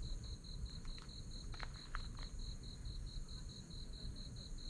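An insect chirping in a steady run of even, rapid high-pitched pulses, over a low background rumble.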